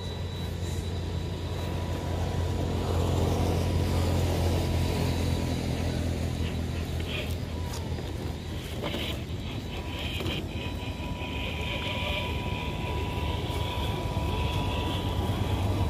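A motor running steadily: a low hum with a thin steady whine above it.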